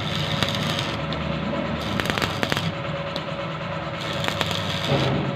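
Electric arc welding: a steady sizzling crackle of the arc, with many sharp pops, over the low hum of a machine.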